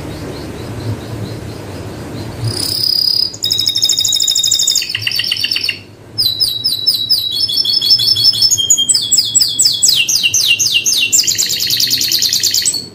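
Domestic canary singing: after a low rumbling haze with a faint trill, it bursts into loud, rapid trills of quickly repeated high notes, switching between several phrases at different pitches. The song breaks briefly about six seconds in and stops suddenly near the end.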